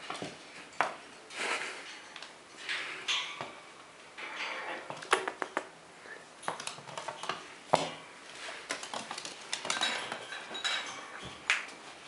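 Pet squirrel's claws scrabbling and tapping on a hard laminate floor while it play-wrestles with a hand: irregular sharp clicks mixed with short scratching scuffles.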